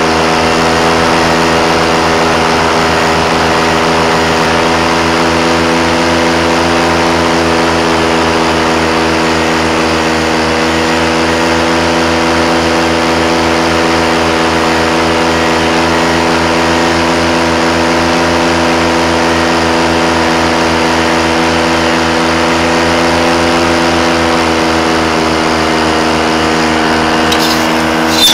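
A paramotor's engine and propeller running steadily in flight, an even drone that holds its pitch throughout.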